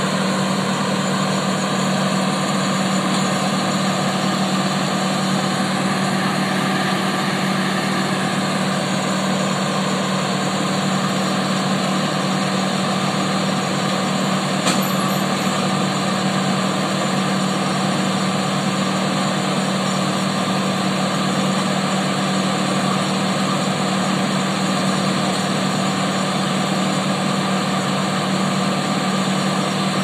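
Wood chipper's engine running steadily at speed, a constant loud hum with one brief click about halfway through.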